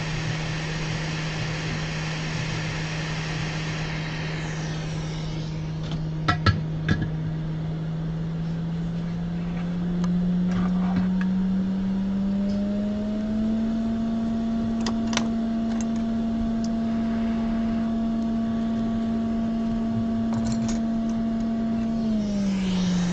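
Hot air rework station's blower running with a steady hum and a rush of air that falls away after a few seconds. A few sharp metallic clicks come from a hobby knife prying at the logic board's metal shield. The hum rises in pitch about ten seconds in, holds, then drops back near the end.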